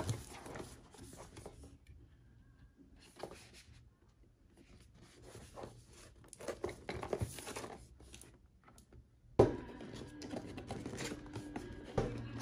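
Cardboard product box being turned over in the hands and its lid opened: scattered scraping and rustling of card, with one sharp knock about nine seconds in.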